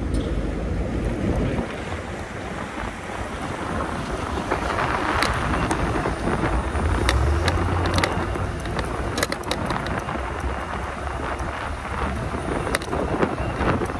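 Wind rushing over the microphone of a moving e-bike, with low rumble from the ride and a swell about halfway through. Scattered sharp clicks and rattles in the second half.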